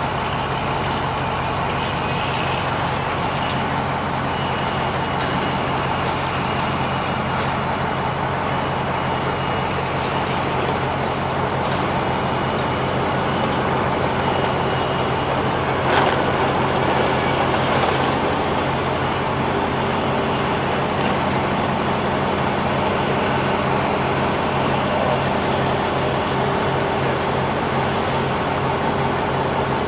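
An engine running steadily with a low, even drone from heavy equipment. A short sharp knock comes about halfway through.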